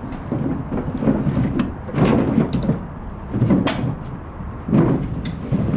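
Firewood being unloaded: an uneven run of heavy knocks and thuds as logs are tossed and land on one another.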